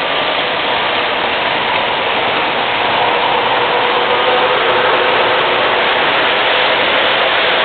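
Several MTH O-gauge model subway trains running on the layout's three-rail track: a steady rolling rattle of wheels on rail with a faint motor whine.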